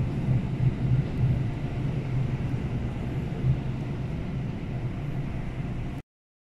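Passenger train running, heard from inside the carriage: a steady low rumble of the running gear with an even rushing noise over it. It cuts off suddenly near the end.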